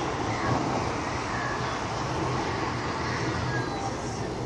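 Steady outdoor street and traffic noise with a low, even hum, heard through an open window.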